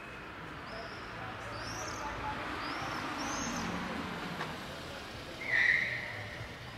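A car drives slowly along the street, its tyre and engine noise swelling and fading. Small birds give short high chirps over it, and a brief, louder high-pitched squeak comes near the end.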